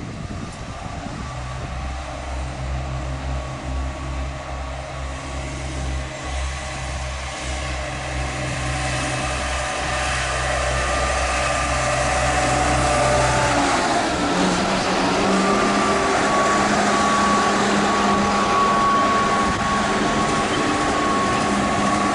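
Diesel train's engine running steadily with a low hum, then about two thirds of the way through its note changes and rises as it powers up, growing louder.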